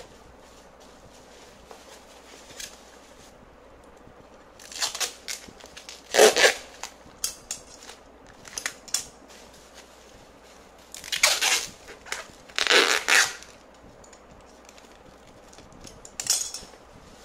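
Clear packing tape pulled off the roll in several short rips, with bubble wrap crinkling and scissors cutting the tape. The loudest rip comes about six seconds in, with two more close together near the twelve-second mark.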